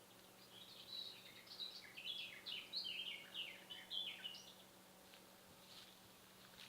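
A songbird singing one phrase of quick, varied chirping notes for about four seconds, starting about half a second in.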